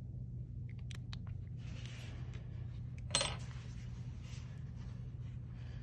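A small metal part or tool set down with one sharp ringing clink, a little after three seconds in, with a few light clicks of parts being handled about a second in. A steady low hum runs underneath.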